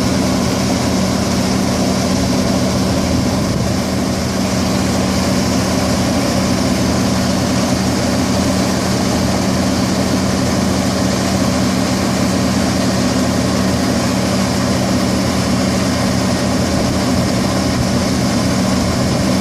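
Engine of harvesting machinery running at a steady, unchanging drone.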